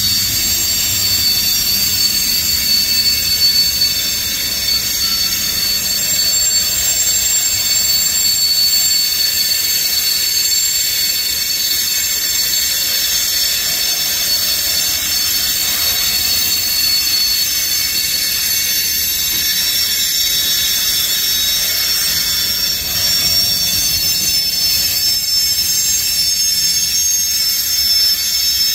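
Freight tank cars and covered hoppers rolling slowly past with a continuous high-pitched squeal of several steady tones over a low rumble. The uploader suspects the train's brakes were left applied and dragging.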